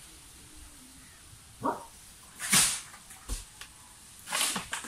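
A dog barking, four short barks spread across a few seconds.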